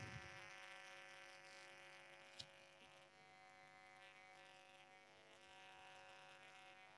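Near silence: room tone with a faint steady hum and one short click about two and a half seconds in.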